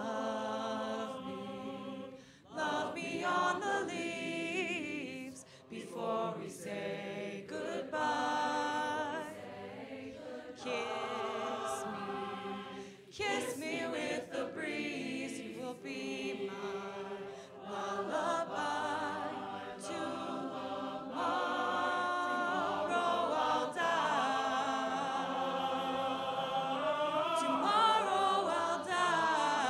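Large mixed choir singing, in phrases separated by short breaks.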